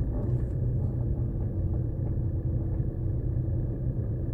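Steady low rumble of a car driving slowly, heard from inside the cabin, with a faint steady engine hum.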